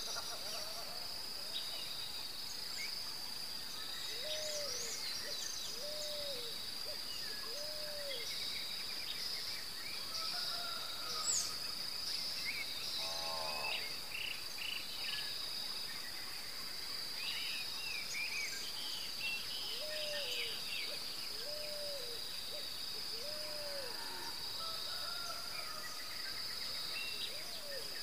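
Night-time outdoor ambience: a steady high-pitched insect drone, with a short rise-and-fall call repeated three times a few seconds in and three times again about two-thirds through, and scattered higher chirps.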